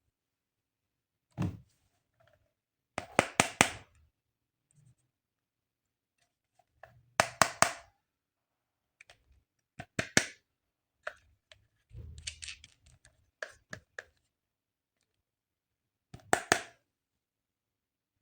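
Toy pieces and packaging being handled up close: short clusters of sharp clicks, taps and scrapes, about six of them, with silent pauses between.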